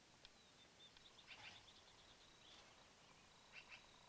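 Faint bird chirps: short high notes in pairs, repeating about every two seconds, over a quiet outdoor background with a faint steady high whine.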